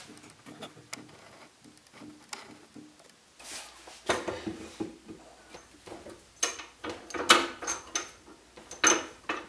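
A squared wooden billet being mounted on a wood lathe: wood knocking against the lathe's metal parts, and clinks as the tailstock and tool rest are set. After a few quiet seconds with faint clicks, several sharp knocks come in the second half, some with a short metallic ring.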